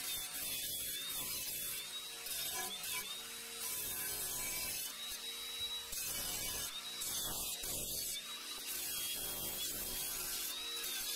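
Cordless narrow-belt power file running and sanding the cut steel edges of an old compressor tank, a steady grinding rasp with a faint high whine that wavers.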